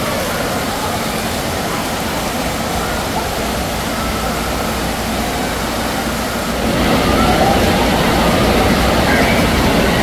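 Wave pool water rushing and churning steadily over crowd chatter, growing louder about seven seconds in.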